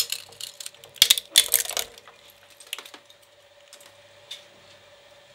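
Twin-shaft shredder's steel cutter discs grabbing and crushing a chunk of a Hot Wheels toy transport truck: a sharp clack as it drops in, then a quick run of cracks and crunches, loudest about a second in, and a few last clicks as the pieces go through. A faint steady hum from the shredder's drive runs underneath.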